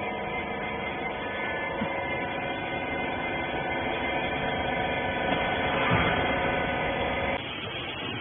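Steady machine hum made of many held tones that cuts off suddenly near the end, typical of electric factory machinery running.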